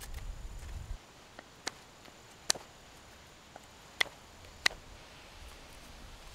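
A few short, sharp clicks and taps of knife work on wood, spread out over several seconds, with a low rumble in the first second.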